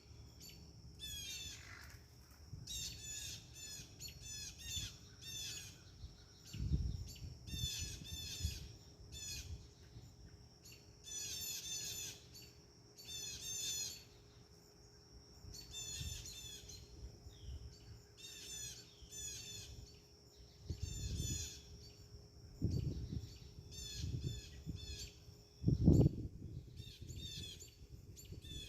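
Birds calling in many short runs of rapid, high chirps, one after another. Wind gusts on the microphone now and then, loudest near the end.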